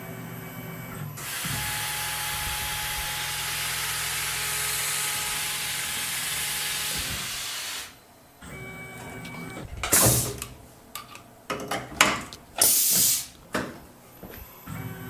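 CNC machining center spot-drilling steel, its coolant nozzles spraying with a steady hiss over the spindle hum for about six seconds. The hiss stops suddenly, and the tool change follows with a series of short, loud air blasts and clunks.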